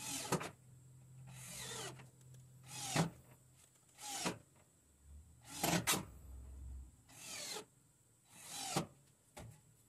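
Cordless drill/driver sinking 2-inch screws into pine bed-platform slats: a series of short grinding bursts, one screw or pulse after another, roughly a second apart.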